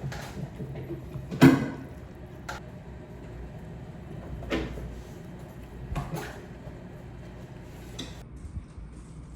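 A handful of separate knocks and clatters of objects being handled, about six, the loudest about a second and a half in, over a low steady hum.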